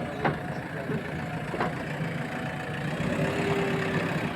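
A heavy engine running steadily at idle, with a few sharp clicks and a brief steady tone about three seconds in.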